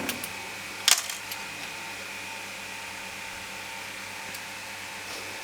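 Green-gas airsoft timer grenade (Escort Volcano 2Bang) going off: a short click about a second in, a few seconds of steady hiss while the delay runs, then a single sharp, loud bang at the very end.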